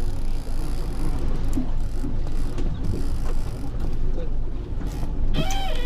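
A fishing boat's motor runs low and steady at slow speed, with a haze of wind and water noise. Near the end a wavering, high-pitched tone with overtones begins.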